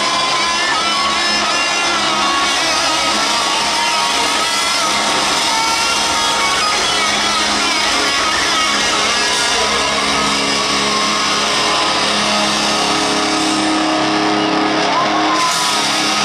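Hard rock band playing loudly through a stadium sound system, with electric guitar to the fore. The sound is heard from far back in the upper stands of the arena.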